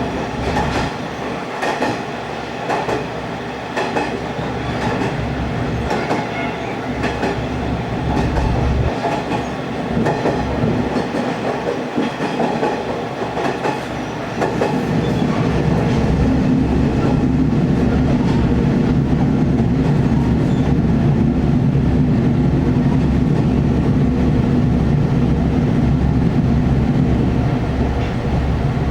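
Diesel railcar coming to a stop: running noise with wheels clicking over rail joints for about the first half, then it stands with its diesel engine idling, a steady low throb that shakes the car.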